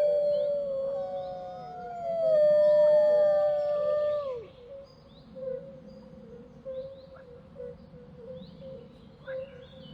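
Wolves howling: a long, falling howl is held, then drops off sharply a little over four seconds in, with other howls gliding above it. After that only faint bird chirps remain.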